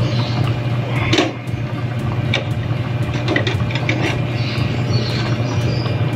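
A pot of soup boiling under a steady low hum, with a few knocks and clinks as the glass lid is lifted off and vegetables are handled in the pot. The loudest clink comes about a second in, and a small cluster follows a couple of seconds later.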